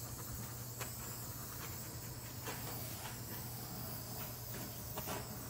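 Small handheld torch flame hissing steadily over freshly poured epoxy resin, its heat levelling the coat and popping surface bubbles. A few faint light taps.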